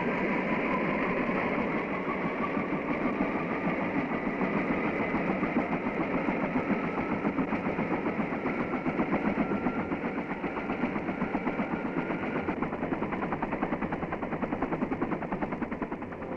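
UH-1 Huey helicopter in flight: a fast, even beat from the two-blade main rotor over the turbine engine's running noise.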